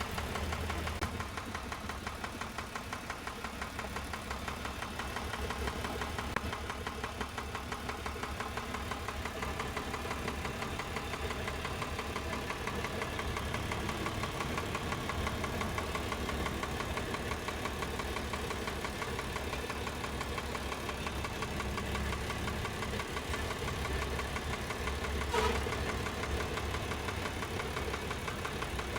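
Isuzu 6HH1 six-cylinder diesel engine running at idle with a steady, rhythmic knock, which the mechanic traces to cylinder No. 1 by cracking the injector pipes. A single sharp click late on.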